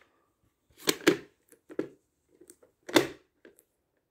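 Hard plastic clicks and knocks of a VHS cassette and its case being handled: several separate clacks, the loudest about three seconds in.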